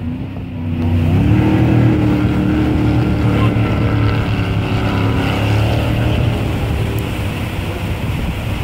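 Racing jet boat's engine at high revs as it drives up through whitewater rapids. Its pitch climbs about a second in, holds, and slowly eases down in the second half. The river rapids rush underneath.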